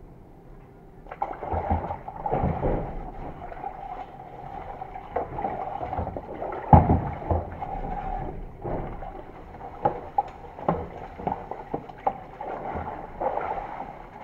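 Metal torque converter part being washed by hand in a tub of cleaning fluid: the liquid sloshes and splashes, with irregular knocks of metal against the tub and a sharp knock about seven seconds in.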